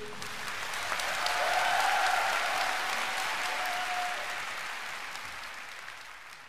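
Audience applause, swelling for a couple of seconds and then fading away toward the end.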